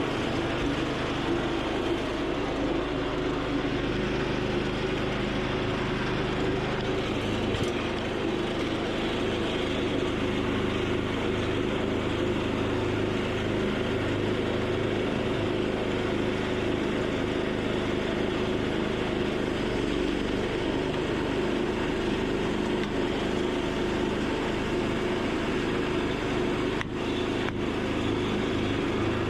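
Small petrol engine running steadily at an even speed, with a short dip near the end.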